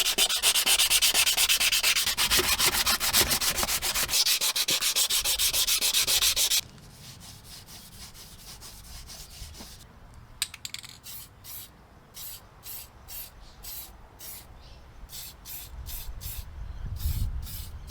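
Sandpaper scrubbed by hand over bare, rust-spotted steel on a car suspension control arm, to clean it for paint: rapid, loud scraping strokes for about six and a half seconds, then it stops abruptly. Lighter, separate strokes follow at about two a second.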